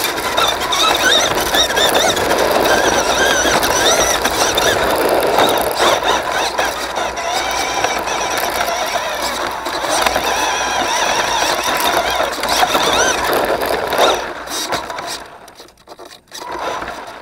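Tamiya Lunch Box RC truck's electric motor and gear train whining as it drives over dirt, the pitch rising and falling with the throttle, recorded from a camera on the truck itself. The whine fades out about fifteen seconds in as the truck slows and stops, with a brief burst near the end.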